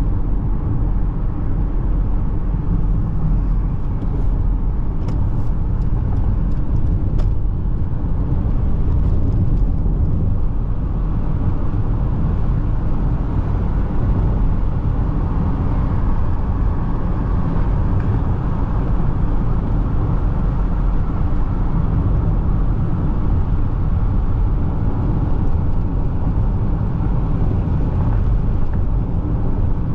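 Steady road and engine noise of a car driving at speed, a continuous low rumble from the tyres and engine.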